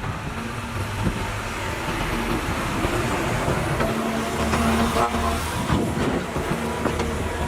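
Caterpillar 320 hydraulic excavator's diesel engine running steadily under load, with a few short knocks and scrapes from digging about halfway through.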